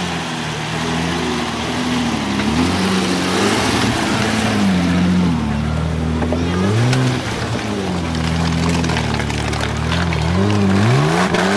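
Off-road 4x4's engine revving up and down repeatedly as it works through a deep mud ditch, with several quick rises in revs near the end.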